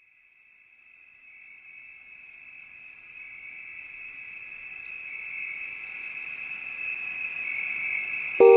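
Cricket trilling steadily, a high, fast-pulsing chirr that fades in from silence and grows louder. Music with bell-like notes starts right at the end.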